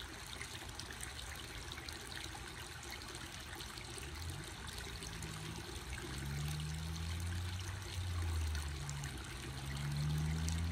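Water trickling and splashing steadily over the rocks of a backyard waterfall and stream. From about four seconds in, a low hum rises and falls in pitch beneath it.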